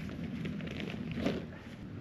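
Wind rumbling on the microphone, with the scratchy rustle of a backpack and gear being handled and a louder rustle a little over a second in.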